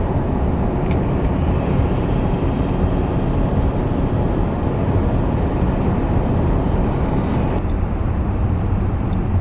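Steady road and engine noise of a moving car, heard from inside the cabin, with most of its weight at the low end.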